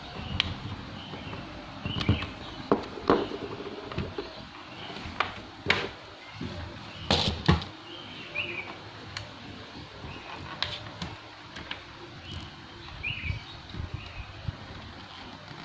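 Irregular sharp clicks and knocks from the plastic case of an Asus X441B laptop as it is handled and pried apart, with a louder double knock about halfway through.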